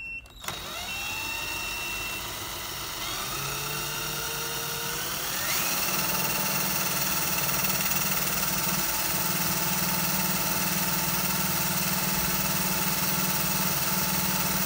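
Cordless drill spinning a washing machine's brushless permanent-magnet motor, used as a generator, at about 1100 RPM. Its whine rises in pitch over the first five seconds as it speeds up, then runs steady and a little louder.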